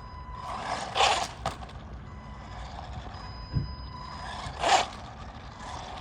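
Electric RC car's motor and tyres whirring in short bursts, twice loudly, about a second in and near the end, as the throttle is pressed and let go, with a faint steady electronic whine between.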